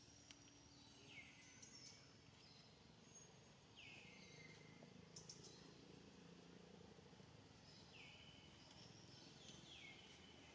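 Faint outdoor ambience with a bird calling: four short calls that each slide down in pitch, given in two pairs, one pair near the start and one near the end.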